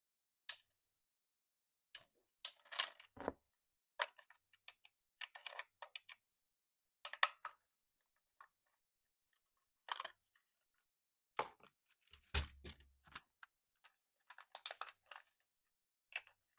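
Short, scattered handling sounds of a toy remote-control car and its packaging: clicks, taps and brief plastic or cardboard rustles, with silence between them and one duller knock about twelve seconds in.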